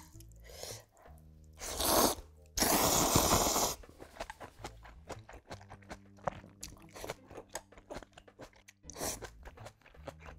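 Close-miked slurping of ramyun noodles, one short slurp about two seconds in and a longer, loud one right after, followed by wet chewing with many small clicking and crunching sounds.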